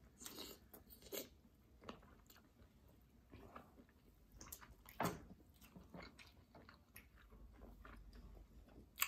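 Faint close-up eating sounds: lobster tail meat being chewed, with soft wet lip smacks and small mouth clicks. A louder smack comes about five seconds in and another just before the end.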